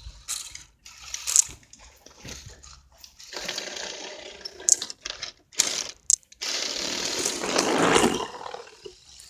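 A Lego Technic RC tracked vehicle driving in bursts: its electric motors and plastic tracks run with a rough, clattering noise. The burst starting about three seconds in lasts about a second and a half, and a louder one from about halfway lasts about two seconds, with sharp clicks in between.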